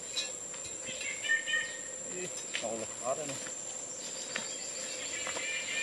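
Insects shrilling in a steady, high, unbroken tone, with a few short bird chirps about a second in and again near the end.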